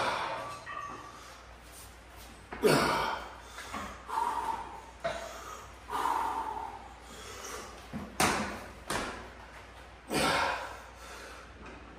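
A man lifting heavy dumbbells breathes hard, with sharp forceful exhalations and grunts coming every second or two, each one sudden and fading quickly.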